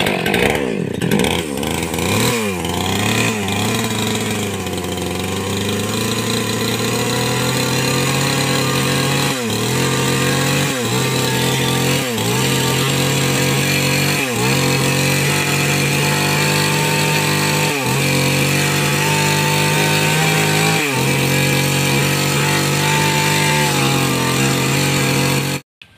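Petrol two-stroke chainsaw running at high speed while cutting into the wooden keel under a boat hull. Its pitch wavers in the first few seconds, then holds steady with a brief dip every one to three seconds as the chain bogs in the hard wood.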